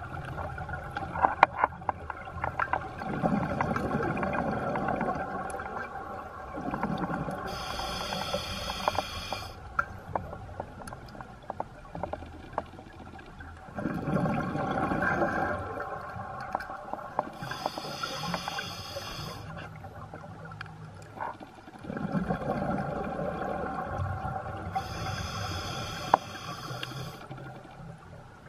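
Scuba diver breathing through an open-circuit regulator underwater, about three breaths: a hissing inhale through the regulator and a rush of rumbling exhaust bubbles on each exhale, every eight or nine seconds.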